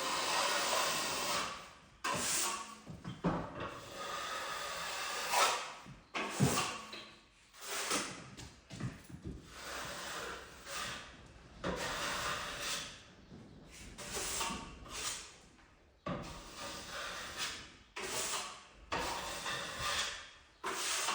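Steel finishing trowel with a curved blade scraping plaster along a plasterboard butt joint, in about a dozen sweeping strokes of one or two seconds each with short pauses between. The mix is on the stiff side.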